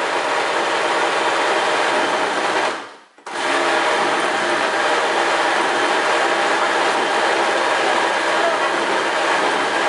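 Countertop blender motor running steadily, churning frozen bananas into soft ice cream. About three seconds in the motor winds down to a stop for about half a second, then starts again at full speed.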